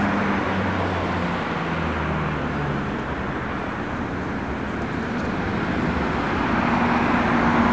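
Street traffic: steady road noise with vehicles passing. An engine hum drops in pitch in the first few seconds, and the noise grows louder near the end as another vehicle comes by.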